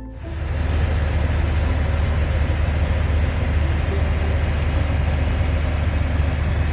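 Freightliner semi-truck's diesel engine running steadily with a deep low rumble. It comes in abruptly at the start.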